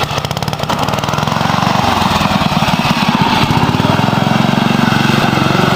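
Dynamark riding lawn tractor's engine running steadily as the tractor is driven across grass, with a rapid, even firing beat.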